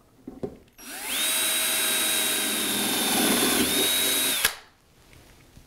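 Ryobi cordless drill with a 15/64-inch bit drilling through the sheet-metal panel of a milling machine column: a couple of light clicks, then the motor spins up to a steady high whine that holds for about three and a half seconds. The pitch dips briefly once, then the whine cuts off sharply.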